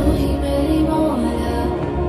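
Background nasheed: a woman's voice singing a slow, wavering melody over a low steady drone.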